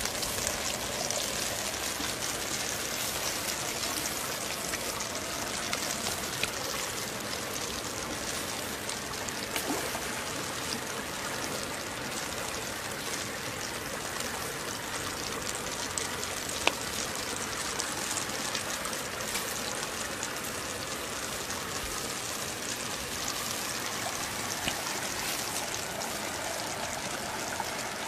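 Steady rush of running creek water, with a few faint clicks now and then.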